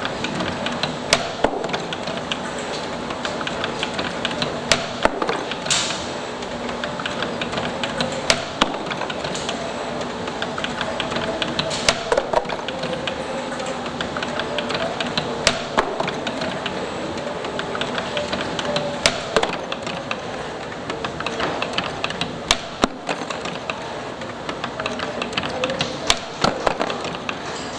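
CNC-620R spring-making machine running a cycle of extension springs: a steady motor hum under fast mechanical ticking, with a sharp, louder clack about every three and a half seconds as each spring is finished.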